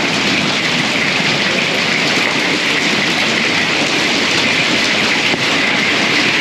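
Heavy hail and rain pelting down in a dense, steady clatter.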